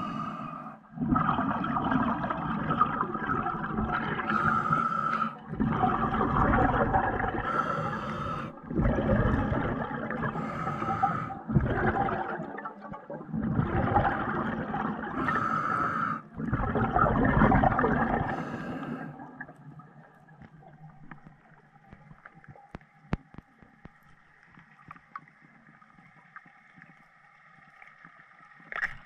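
Underwater sound picked up by a diver's camera: repeated bursts of bubbling and rushing water, each a few seconds long with short breaks. About two-thirds of the way in it drops to a much quieter stretch with scattered clicks.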